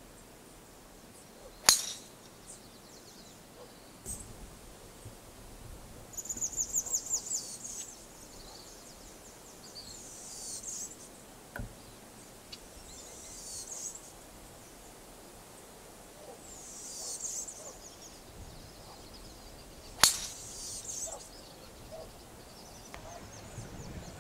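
Two sharp cracks of a golf club striking a teed-up ball on tee shots, one about two seconds in and the other near the end. Birds chirp and trill in between.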